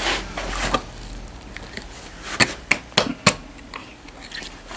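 Knife cutting through the pelvic joint of a pig carcass: a short rasping cut, then four sharp cracks about a third of a second apart as the bone gives way.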